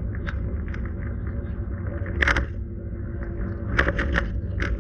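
Steady low road and engine rumble inside a moving car's cabin, with a few irregular sharp clicks, the loudest about two seconds in and a quick cluster near the end.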